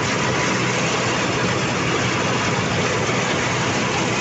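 Tractor diesel engine running steadily at working revs while it pulls a mulcher through rice stubble, the mulcher's noise mixed in with the engine.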